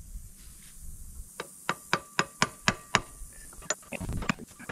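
Hammer tapping a steel socket that drives a new seal into the gland of a John Deere 148 loader's hydraulic lift cylinder. A quick run of about seven sharp taps, roughly four a second, then one more tap a moment later.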